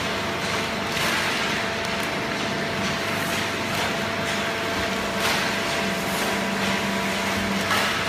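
A fully automatic horizontal hydraulic waste-paper baler and its chain-plate conveyor running: a steady mechanical hum with several held tones, and an irregular light clatter now and then.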